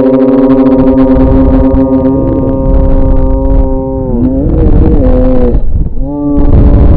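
Riders screaming on a slingshot thrill ride: one long held scream that breaks off about four seconds in, then a second held scream starting about six seconds in, over heavy wind rumble on the microphone.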